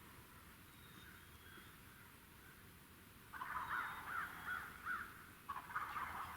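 American crows cawing: after about three seconds of quiet, a run of harsh caws, a short pause, then another run near the end.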